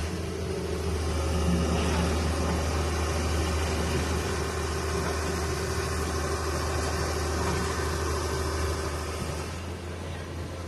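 Tata Hitachi Zaxis 220 excavator's diesel engine running steadily. It builds up over the first couple of seconds, then eases off near the end.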